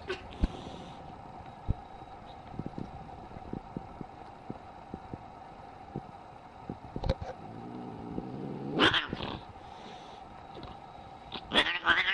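Angry cat: after a stretch of faint clicks over a steady low hum, a short harsh outburst comes about nine seconds in, then a loud, wavering yowl starts near the end.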